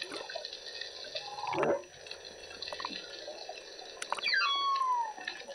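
Humpback whale calls heard underwater: a short rising-and-falling moan about a second and a half in, then a long call sliding down from high to low pitch near the end, over a steady crackle of the sea.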